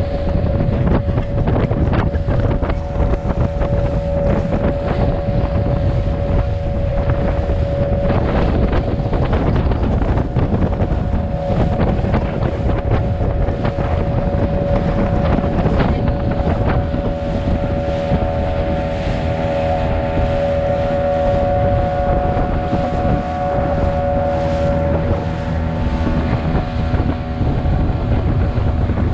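Small motor boat's engine running steadily at speed, a constant whine, with heavy wind buffeting the microphone and water rushing and splashing along the hull.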